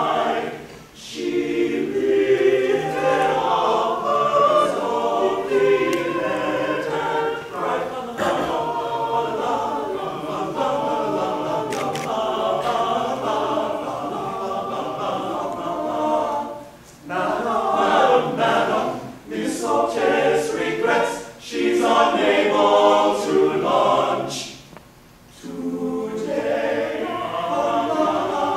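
Large men's chorus singing in harmony, phrases separated by short breaths and pauses.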